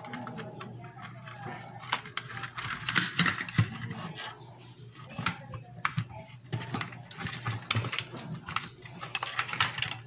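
Irregular clicks, taps and small rattles of hands working on an air conditioner's wiring, pushing wire connectors back onto the capacitor's common, fan and herm terminals, over a low steady hum.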